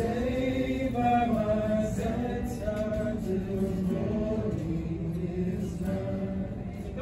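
Slow song sung with acoustic guitar accompaniment: sustained melody notes that move in steps, sounding like voices singing together.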